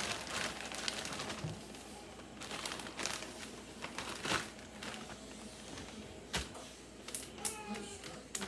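Plastic zip-top freezer bag crinkling and rustling in irregular bursts as it is handled, lifted and closed.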